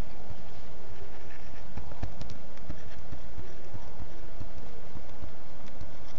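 Irregular soft knocks and clicks of a stylus tapping and dragging across a tablet screen while handwriting is written, picked up close to the microphone.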